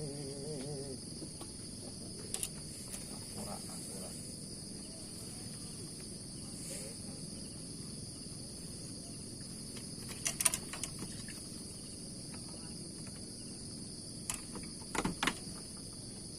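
Steady insect chorus holding two high, even pitches. A low background hum sits beneath it, and a few brief knocks come around 10 and 15 seconds in.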